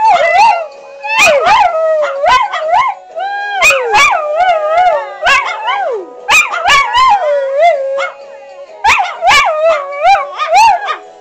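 Small dogs howling and yipping along to a cartoon's music, in wavering calls that rise and fall and come in short runs with brief pauses between them.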